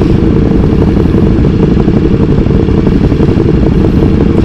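Motorcycle engines idling at a standstill: a loud, steady engine rumble.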